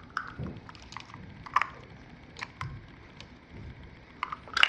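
Baby's plastic toy cups clicking and tapping in short, irregular knocks as he handles them, with a louder click near the end.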